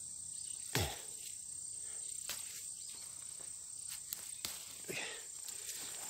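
Steady high-pitched chirring of autumn crickets, with a brief thump about a second in and a few faint clicks.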